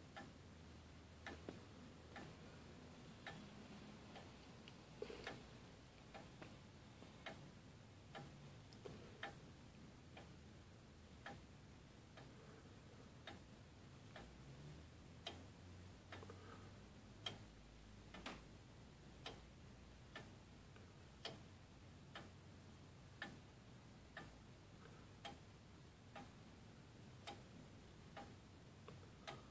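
Herschede Model 250 tubular grandfather clock ticking: a faint, even tick from the escapement about once a second.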